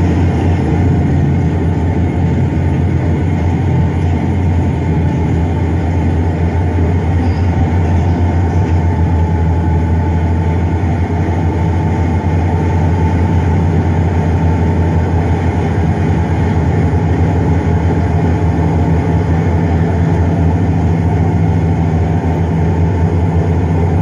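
Crawler bulldozer's diesel engine running steadily under load as it pushes sand, a constant low drone.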